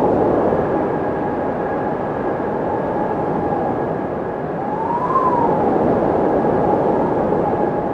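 Windmill turning in the wind: a steady whooshing drone with a faint constant whine over it. The sound swells and eases slowly, and about five seconds in a brief whine rises and falls again.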